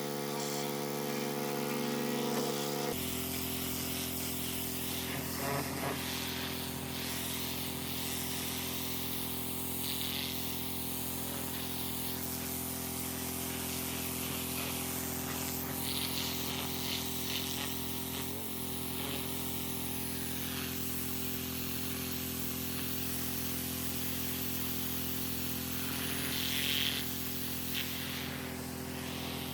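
A small engine running at a steady speed, its tone shifting once about three seconds in.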